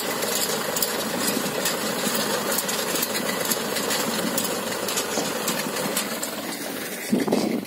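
Tractor engine running steadily as it pulls a mulch film laying machine through the soil. The sound swells briefly just before the end.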